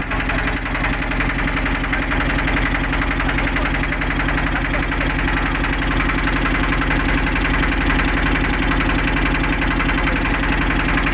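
Engine running steadily with a fast, even beat and no change in speed.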